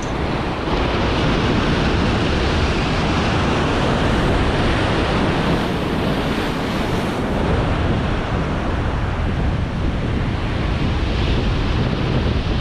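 Heavy surf breaking in rough seas, with strong wind blowing on the microphone: a dense, unbroken rush of noise.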